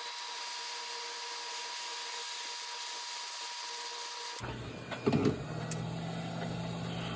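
Heat gun blowing a steady hiss while shrinking heat-shrink tubing over wires; it cuts off suddenly about four and a half seconds in. A knock follows, then a low steady hum.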